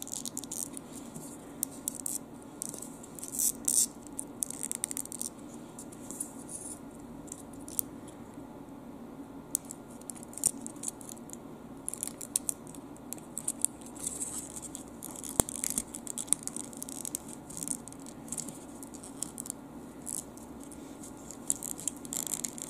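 Stiff paper puzzle pieces of a 3D kangaroo model handled and slotted together by hand: irregular rustling, scraping and small clicks, over a steady low hum.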